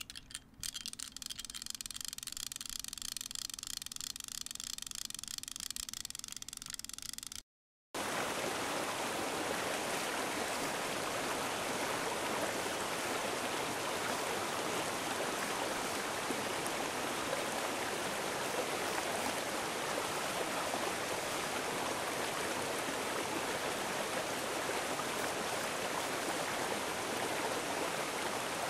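Steady rushing of running water, like a stream, evenly loud and unchanging. It starts after a brief dropout about seven seconds in. Before that there is quieter indoor ambience with a faint steady hum.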